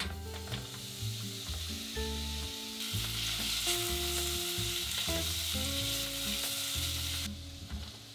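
Sliced onions sizzling in a stainless steel pot on the stove as they are stirred with a silicone spatula. The sizzle grows louder about three seconds in and eases off near the end.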